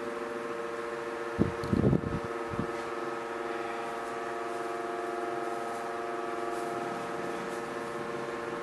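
Steady electrical hum of a fan motor, with a few brief soft handling sounds about one and a half to two and a half seconds in.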